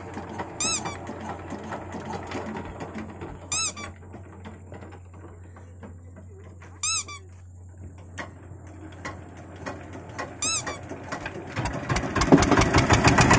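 Four short, high squeaks about three seconds apart over a low steady hum. Near the end the boat's diesel engine starts and runs loudly with a rapid chug.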